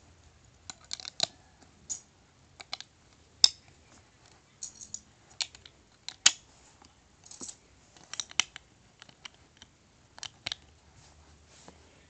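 Plastic LEGO bricks clicking and knocking as they are pressed onto a baseplate and handled: a run of irregular sharp clicks, two of them much louder, about three and a half and six seconds in.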